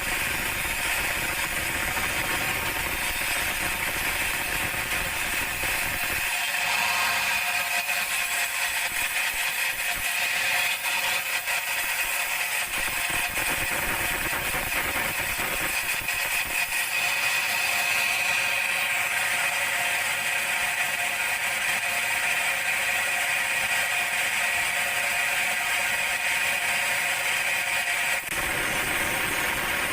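Band sawmill running, with a steady high whine.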